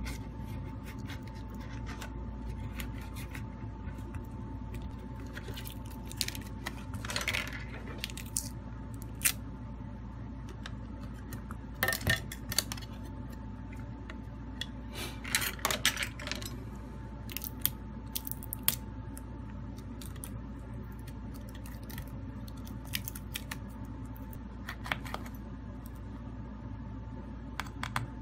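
Small clicks, taps and scrapes of fingers and a plastic pry pick working on a smartphone's glass back and frame as the back is lifted off, with a few louder clusters of clicks, over a steady faint hum.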